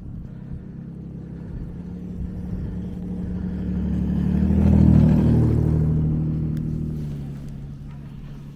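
A motor vehicle drives past on a snowy road. Its engine note grows louder to a peak about halfway through, then fades away, dropping slightly in pitch as it passes.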